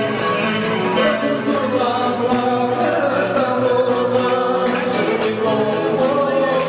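Greek folk dance music with singing, playing steadily and loudly.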